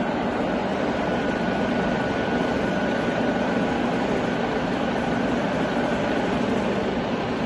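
Sachman bed milling machine running with its table driven lengthwise under power: a steady mechanical whir of the feed drive and gearing. A faint high whine fades out about six seconds in.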